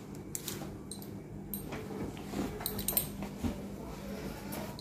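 A plastic carrier bag being handled, giving scattered short crinkles and clicks a few times a second, over a low steady hum.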